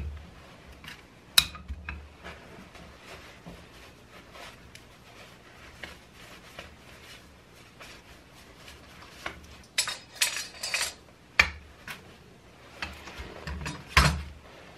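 Metal tools and shock absorber parts clinking and knocking on a workbench as a pit bike rear shock's coil spring and spring retainer are fitted back onto the shock body. A sharp knock about a second and a half in, a burst of clattering around ten seconds in, and another loud knock near the end.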